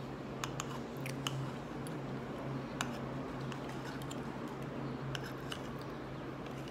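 Quiet eating sounds: soft chewing of grilled banana, with a scattered handful of sharp little clicks from a thin utensil, over a steady low hum.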